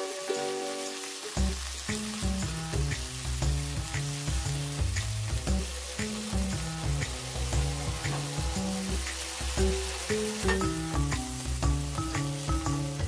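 Shell-on prawns sizzling and spattering in hot oil in a frying pan as they are turned with a silicone spatula. Background music with a stepping bass line runs underneath, coming in about a second in.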